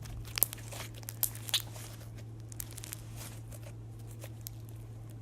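Homemade slime being squeezed and stretched by hand, giving a crackly, popping texture sound. The sharpest pops come in the first second and a half, then fainter scattered crackles, over a steady low hum.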